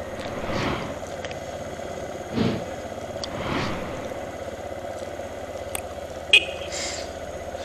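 Motorcycle engine idling steadily while stopped, with other vehicles passing in soft swells and one short sharp clack about six seconds in.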